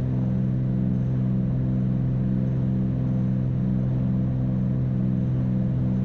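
Cessna 310's twin piston engines and propellers droning steadily in the climb just after takeoff, heard inside the cockpit, with a slow regular throb a little more than once a second.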